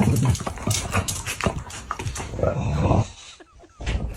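A dog vocalising over a busy clatter of short knocks and scuffling, easing off briefly about three seconds in before picking up again.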